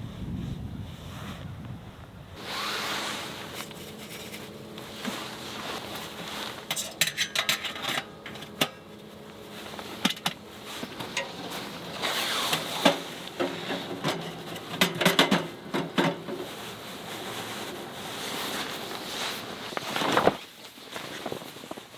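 Camping gear being handled: rubbing and scraping, with light clicks and clatter, after a low wind rumble in the first two seconds.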